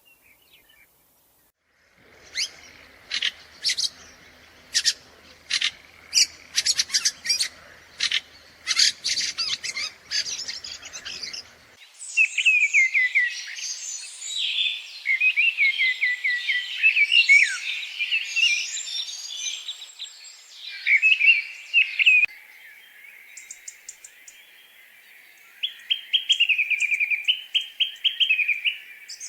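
Small songbirds calling and singing: a run of short, sharp chirps for about ten seconds, then quick, continuous warbling song with rapid rising and falling notes.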